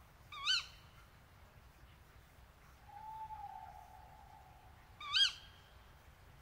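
Owl calls: two short, sharp shrieks about five seconds apart, with a longer, lower hoot between them that falls slightly in pitch.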